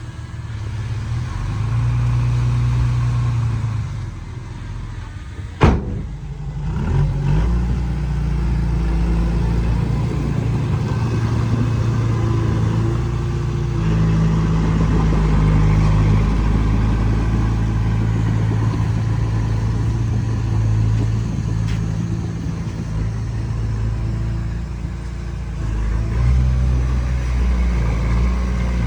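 Diesel engine of a small bulldozer running under changing load, its pitch stepping up and down as it works. There is a single sharp bang about six seconds in.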